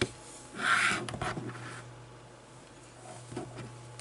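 Small clicks and a brief scratchy rubbing about a second in from power lead clips being handled against a model locomotive chassis, over a steady low hum; the motor is not yet running.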